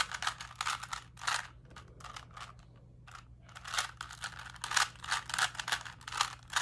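3x3 Rubik's cube being turned quickly by hand: rapid plastic clicking and clattering as the layers rotate, in bursts with a brief lull about two to three seconds in.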